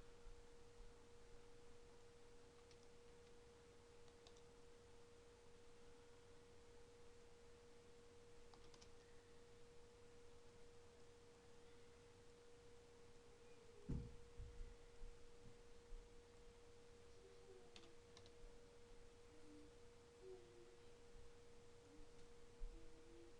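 Near silence with a faint, steady single-pitch hum throughout. A few faint clicks and one soft thump about 14 seconds in.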